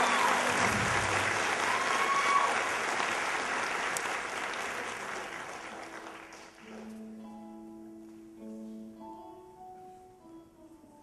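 Audience applauding, fading out over about six seconds. Then a quiet instrumental introduction of slow, held notes begins.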